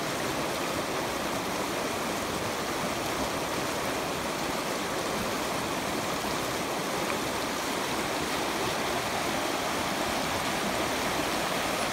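Shallow, fast river running over a gravel and stone bed: a steady, even rush of flowing water.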